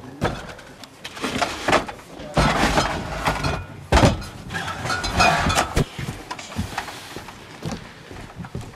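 Irregular knocks, clatter and scraping as a steel beer keg and plastic crates are lifted off a porter's carrying frame and handled, with one heavy thump about four seconds in.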